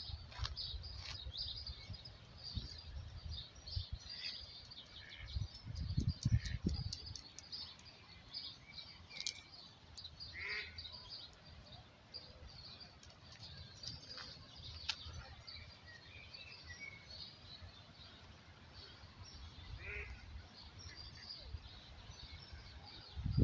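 Small birds chirping and singing faintly in the background, with a few low rumbles, the strongest about six seconds in.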